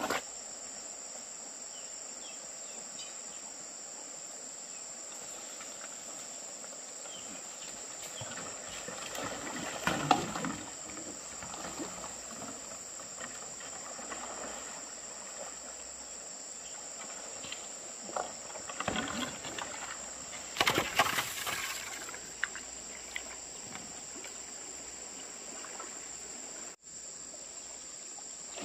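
Steady high-pitched chorus of insects, unbroken throughout, with a few short bursts of rustling and knocking, the loudest about ten seconds in and again about twenty-one seconds in.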